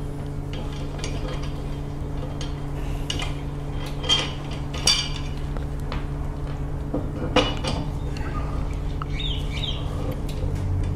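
Lug nuts being spun off wheel studs by hand with a four-way cross lug wrench: light metal clinks of socket and nuts, with three sharper clinks about four, five and seven seconds in, over a steady low hum.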